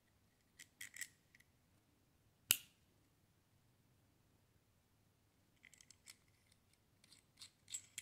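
Small metal parts of a Perlick beer faucet clicking and clinking as they are handled and fitted together, with one sharp, loud click about two and a half seconds in and a run of small clicks near the end.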